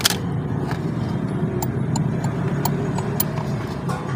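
Light, irregular clicks and taps of the alarm clock's plastic housing and small parts being handled, over a steady low rumble.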